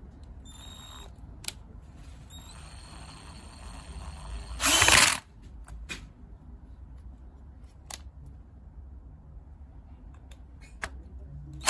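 KIMO 20V cordless drill driver running in short spurts: a faint steady whine twice, a short loud burst about halfway through, and another just at the end, with scattered clicks between.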